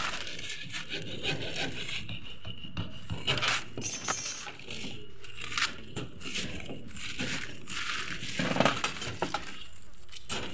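A hand-held hacksaw blade sawing through a PVC electrical conduit pipe, in short, uneven strokes.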